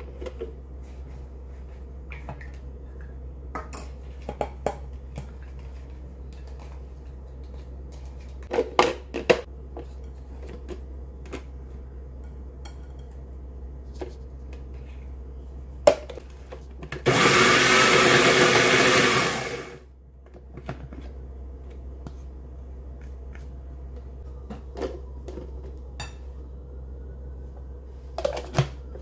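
Electric food processor motor running for about three seconds to chop tomatoes, then spinning down, with a low steady hum underneath. Around it come short clicks and knocks of the plastic bowl and lid being handled and loaded.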